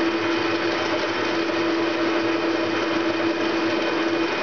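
Metal lathe running steadily, its cutter taking a facing cut to turn a recess into the face of a spinning chuck backplate, with a constant whine over the cutting hiss.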